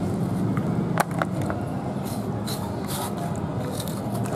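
Steady street-traffic rumble, with a sharp knock about a second in and several soft rubbing strokes as hands scrub wet raw meat in a plastic basin; water starts pouring into the basin near the end.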